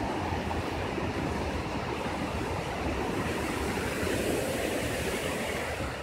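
Steady rush of a waterfall cascading over rocks. The hiss grows brighter in the second half.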